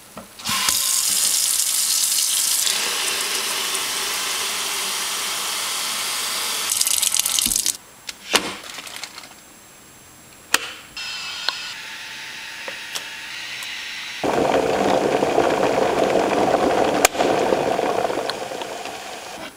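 Kitchen faucet water running hard into the sink, then shut off after about seven seconds. A few sharp clicks and knocks follow as a Betty Crocker electric kettle is handled and plugged in. From about two-thirds of the way in, the electric kettle heats with a loud, steady rushing noise as it comes toward the boil.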